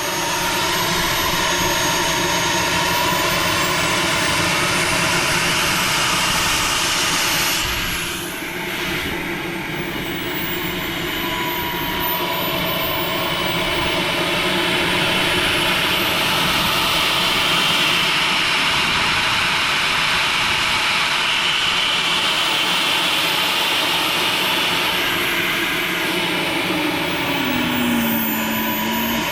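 Model jet turbine of an RC L-39 Albatross running on the ground after a fresh start: a steady jet roar with a faint high whine drifting up and down, easing briefly about eight seconds in.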